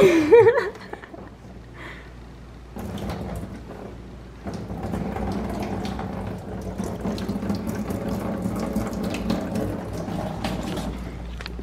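Watery coolant draining from a BMW E46 engine's disconnected lower hose and splashing into a plastic drain pan. It begins about three seconds in as a steady pour with small patters and gets heavier a couple of seconds later.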